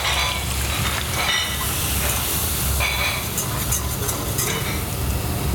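Flour being whisked into melted butter in a small stainless steel saucepan to make a roux, sizzling gently, with light ticks of the wire whisk against the pan in the second half, over a steady low hum.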